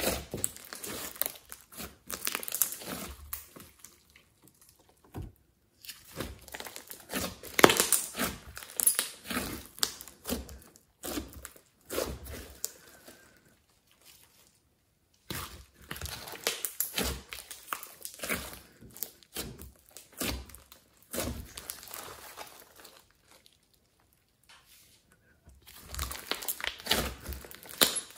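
Hands squeezing, pressing and stretching a large mass of glossy slime mixed with clay, giving irregular wet crackling and popping. The sound drops to near silence twice, about halfway through and again a few seconds before the end.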